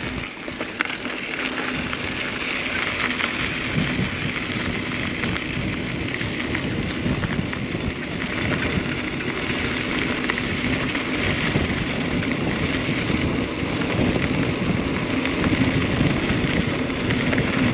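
Wind buffeting the camera microphone: a steady rushing with a low rumble and a faint steady hum underneath, which the dead cat windscreen does not keep out.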